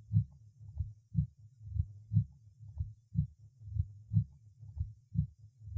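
Heart sounds heard at the cardiac apex, beating in a regular rhythm about once a second, with a weakened first heart sound: the sign of an extensive myocardial infarction.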